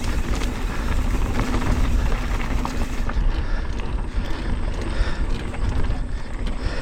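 Wind buffeting the microphone over the rattle and clatter of a mountain bike rolling down a dirt trail. The high hiss drops away about three seconds in.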